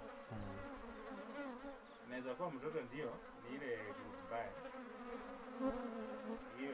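Honeybees buzzing as they fly close past and around one another, several overlapping hums sliding up and down in pitch.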